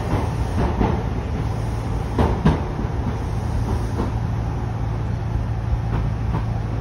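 Kintetsu electric commuter train running, heard inside the passenger car: a steady low hum and rumble with occasional knocks of the wheels over the track. The loudest is a pair of knocks a little over two seconds in.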